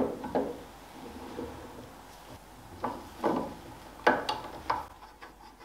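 Metal lathe steady rest being set onto the lathe bed ways and shifted into place around the shaft: a series of clunks and short scrapes, metal on metal.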